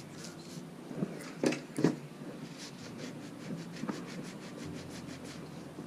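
Rusty bike chain scrubbed with a stiff plastic-bristle chain brush in quick short strokes, then rubbed in a cloth rag, with a couple of sharper knocks about one and a half to two seconds in.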